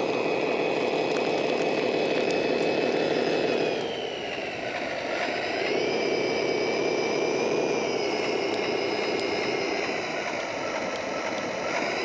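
Electric gear motors of a 3D-printed 1:14 scale RC bulldozer whining steadily as it drives over loose soil. The whine sags in pitch about four seconds in and climbs back up a second or so later.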